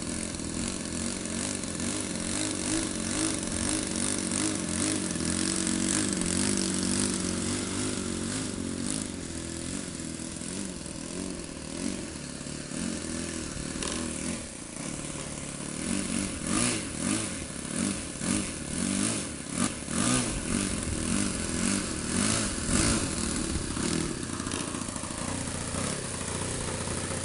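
RC model plane's Super Magnum XL four-stroke glow engine and propeller running on the ground. It runs steadily, then is throttled up and down in about six short revs in the second half.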